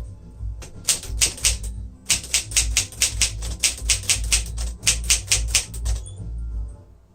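1957 Smith-Corona Silent-Super manual typewriter being typed on: a rapid run of key strikes, the typebars hitting the platen, with a brief pause near the end.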